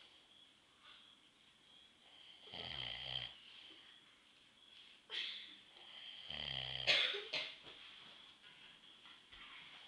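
A man snoring deeply: two long rattling snores a few seconds apart, the second one louder.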